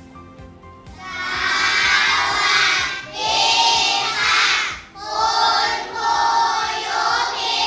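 A class of young children chanting a greeting to their teacher in unison, in three long, drawn-out phrases. Quiet music plays until the voices come in about a second in.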